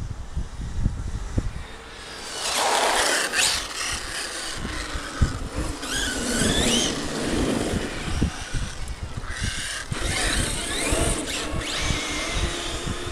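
Radio-controlled cars, a Traxxas X-Maxx monster truck and a Hobao VS2 buggy, speeding across asphalt. Their motors whine up and down in pitch in three passes, about 2.5, 6 and 10 seconds in. Wind buffets the microphone throughout.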